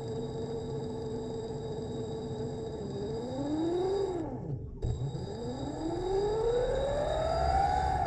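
Electric drive motor of a wire-mounted camera dolly whining. It holds a steady pitch, then rises and falls as the dolly speeds up and slows, and stops briefly about five seconds in. It then climbs again to a higher pitch, which starts to fall at the very end.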